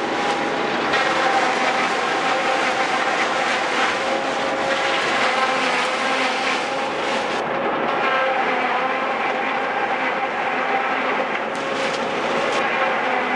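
JF 92Z10 tractor-mounted forage harvester chopping standing corn stalks, driven off the tractor's power take-off, with the tractor engine running under load. A steady, even whir of the cutting rotor and blower runs over the engine, with no break in the chopping.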